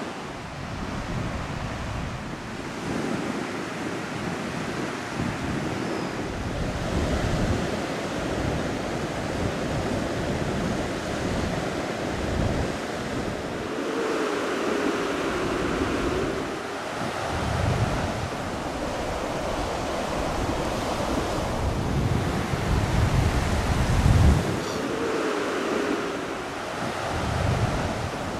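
Baltic Sea surf washing in steadily on a wide sandy shore, with wind gusting on the microphone in low rumbles, one strong gust near the end.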